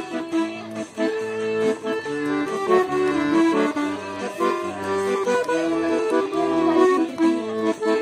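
Piano accordion playing an instrumental passage of a folk-style song: held chords and a tune on the treble side, with the pitches shifting every second or so over low bass notes.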